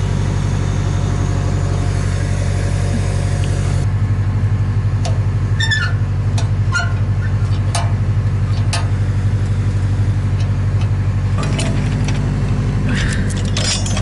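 Backhoe's diesel engine running steadily, its note changing about four seconds in and again a few seconds before the end. A few light clanks sound over it.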